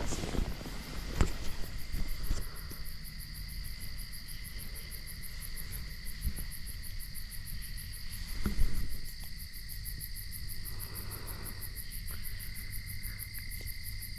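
Crickets trilling steadily at night, a continuous high chirring with a fast even pulse. A few short knocks or rustles sound near the start, and a louder one about eight and a half seconds in.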